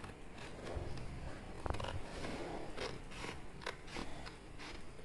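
Scissors cutting through a sheet of scrap paper along a fold, a run of uneven, short snips.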